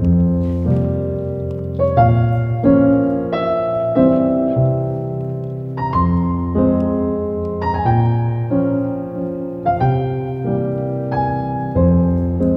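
Background piano music: slow, gentle notes and chords, a new one struck about every two-thirds of a second, each ringing on and fading.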